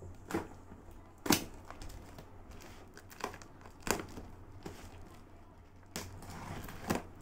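Plastic wrapping and packing tape on a parcel being torn open: crinkling plastic with several sharp snaps and rips, the loudest about a second in.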